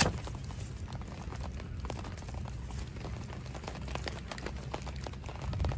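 Footsteps in sandals on wet grass with small knocks and rustles from pitching a tent, starting with one sharp click. A steady low rumble runs underneath.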